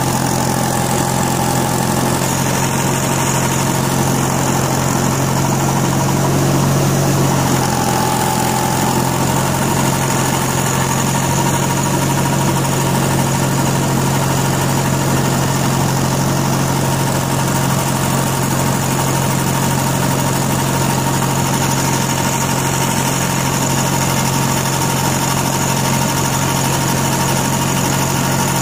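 Wheel Horse D-series garden tractor's engine running steadily under load, driving its front-mounted snowblower as it throws snow, with a steady high whine over the engine hum.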